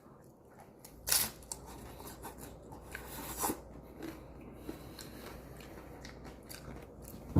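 Crisp fried corn tostada being bitten and chewed: sharp crunches about a second in and again at about three and a half seconds, with smaller crackles between.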